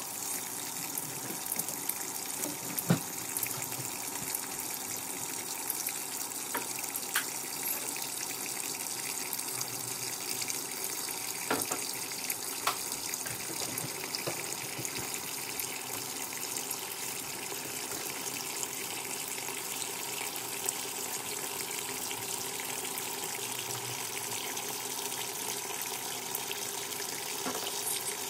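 Water running steadily into the tub of a Giantex EP23113GB top-loading washing machine as it fills for its final rinse, with a few faint clicks.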